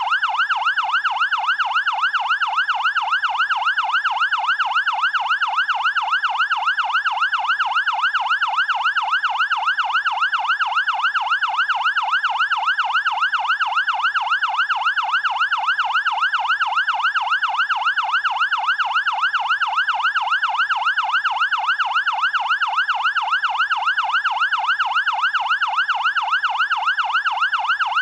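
Fire department siren sounding in a fast yelp: a single wailing tone sweeps up and down about two to three times a second, steady and unbroken.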